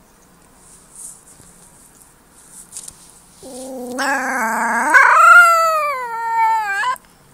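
A white wolf pup howling once, starting about halfway through: a low whine that breaks upward, rises, then slides slowly down in pitch for about three seconds before cutting off sharply.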